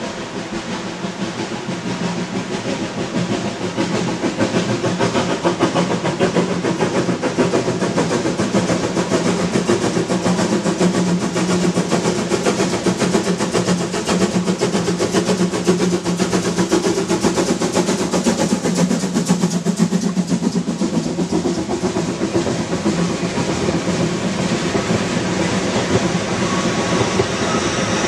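Narrow-gauge steam locomotive working a mixed train, its exhaust chuffing and hissing as it approaches and passes, growing louder over the first few seconds. In the second half the coaches roll past with a clatter of wheels on the rail joints.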